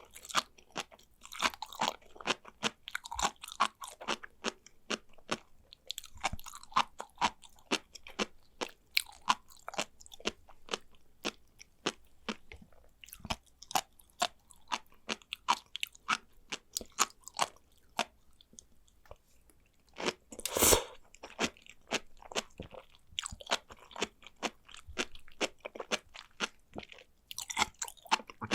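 Sea grapes (umibudo seaweed) being chewed close to the microphone: a dense, irregular run of small wet pops and crunches as the tiny beads burst, with one louder, longer crunch about two-thirds of the way through.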